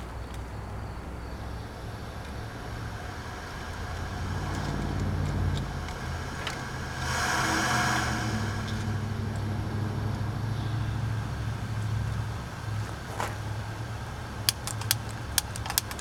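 Truck engine running at a steady idle, its exhaust piped through a hose into an HHO test assembly. A short hiss comes about halfway through, and a quick run of sharp clicks near the end.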